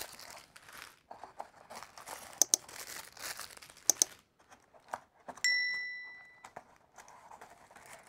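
Tissue paper crinkling and rustling as paper-wrapped action figures are lifted out of a cardboard box and set down. Two sharp clicks come about two and a half and four seconds in. About five and a half seconds in there is a single bell-like ding that fades over a second, the sound effect of an on-screen subscribe-button animation.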